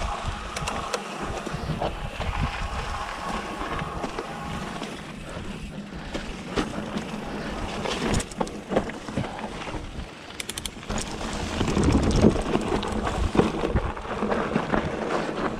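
Mountain bike riding over a dirt trail: irregular rattles and knocks from the chain, gears and frame over bumps, over a steady rumble of tyres and wind. The gear noise is loud.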